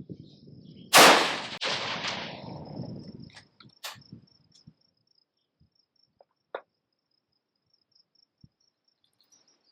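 A single rifle shot about a second in, its report rolling away for about two seconds, followed by a few small sharp clicks. Crickets chirp steadily throughout.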